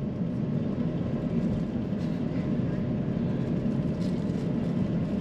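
Steady low rumble of cabin noise inside an Airbus A350-900 airliner on the ground, with the engines and air conditioning running, and faint voices in the background.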